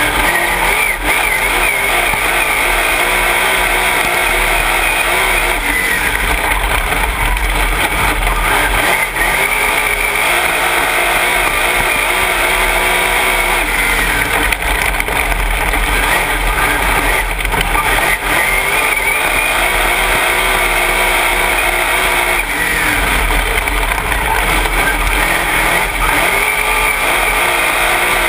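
Dirt late model race car's V8 engine at racing speed, heard from inside the cockpit. It runs loud and hard, its pitch dipping and climbing back again several times as the car goes through the corners.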